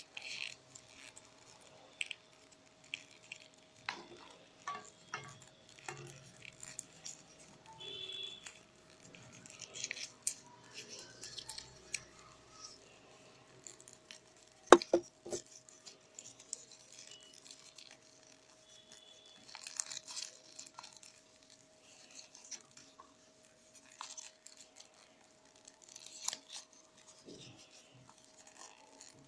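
Rolled newspaper tubes rustling and crinkling as they are woven by hand into a petal, with scattered small clicks and taps. A sharp tap about fifteen seconds in is the loudest sound, and a faint steady hum runs underneath.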